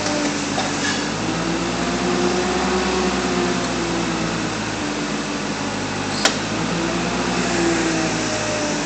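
Forklift engine running steadily, its hum drifting slightly up and down in pitch. A single sharp click comes about six seconds in.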